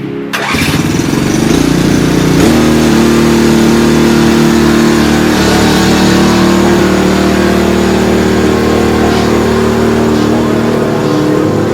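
Engine of a homemade welded dump truck running, picking up about two and a half seconds in and then holding a steady pitch.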